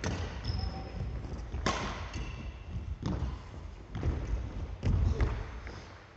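Badminton rally on a wooden sports-hall floor: a few sharp cracks of rackets striking the shuttlecock, spaced a second or more apart, with thudding footsteps, lunges and brief shoe squeaks. The sounds stop near the end as the rally ends.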